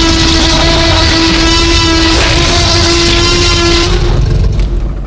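Very loud meme sound effect: one horn-like tone held steady for about four seconds over a heavy rumble, dying away near the end.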